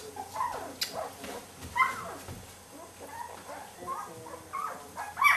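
Young golden retriever puppy whimpering, a string of short, high squeaks and whines, with a louder squeal near the end.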